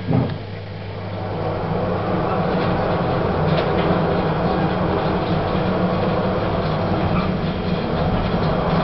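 KONE EcoDisc lift car travelling up its shaft: a thump just after the start, then a steady rumbling hum of the moving car that builds over the first couple of seconds and holds.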